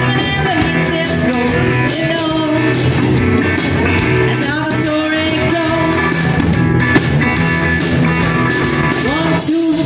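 Live rock band playing loudly, with bass guitar and drum kit, a singer's voice carrying the melody over them.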